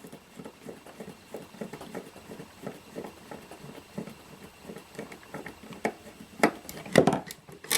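A screwdriver working a small screw out of a metal instrument panel: a run of faint, quick ticks and scrapes, then a few sharper clicks and knocks near the end.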